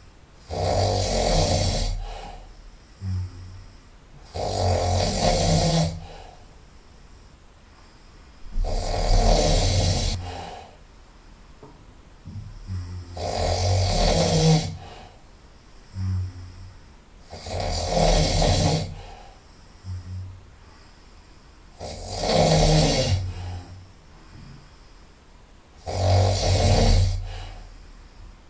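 A person snoring loudly through the nose, seven snores in a steady rhythm of about one every four seconds, each lasting a second or so, with a short, fainter breath sound between them.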